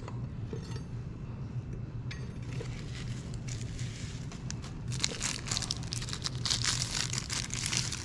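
Clear plastic packaging crinkling and rustling as a knife is pulled out of its plastic sleeve, growing louder and denser over the last three seconds. A steady low hum runs underneath.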